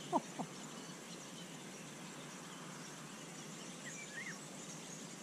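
Faint outdoor riverbank ambience: a steady low hiss with a few short, faint bird chirps about four seconds in, after a brief voice-like sound at the very start.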